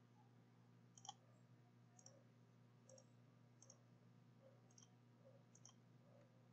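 Faint computer mouse clicks, roughly one a second, over near silence with a low steady hum.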